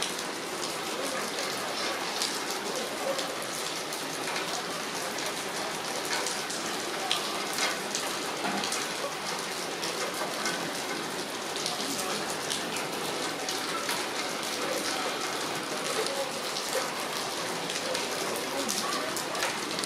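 Heavy rain falling steadily, an even hiss studded with many sharp ticks of individual drops striking nearby surfaces.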